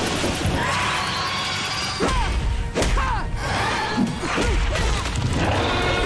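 Cartoon battle sound effects: several sharp hits around the middle, with swishes and gliding shrieks over a steady, low, rumbling din.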